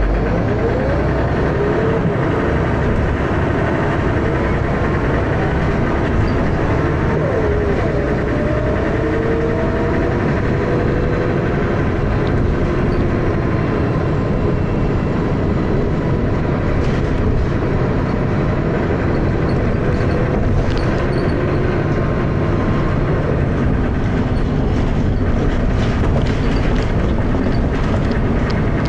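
Dennis Arrow double-decker bus's diesel engine running under way with a heavy, rough thrash and the loud knocking noise that this bus is known for, with faint rattles over it. A whine rises in the first second or so, and steadier whines follow.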